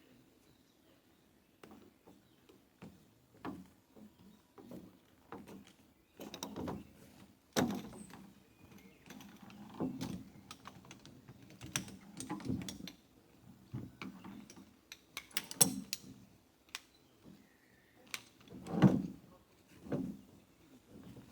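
Irregular knocks, clicks and light thumps of objects being handled, with a few louder thumps, the loudest about a third of the way in and near the end.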